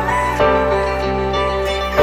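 Soundtrack music with sustained chords and a melody; the harmony changes about half a second in.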